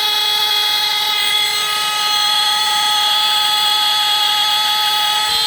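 Two Hudson Mfg Co Model 200 security and fire alarms sounding their electric horns together in a loud, steady blare. Heat from a hair dryer on their heat sensors has set them off, and the horns stay latched on before resetting themselves.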